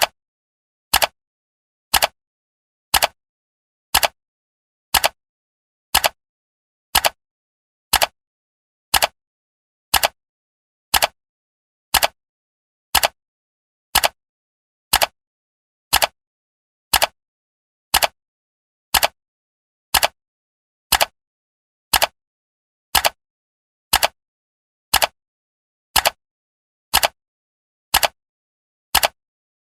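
Countdown timer ticking like a clock: one short, sharp tick every second, evenly spaced, with silence between the ticks.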